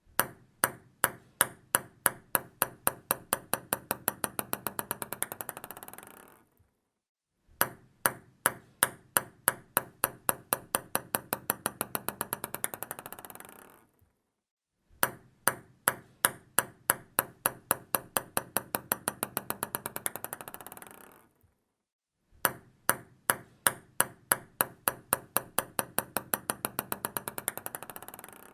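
A ping pong ball bouncing on a hard surface: sharp clicks that come faster and fainter until they run together into a rattle and stop. It happens four times over.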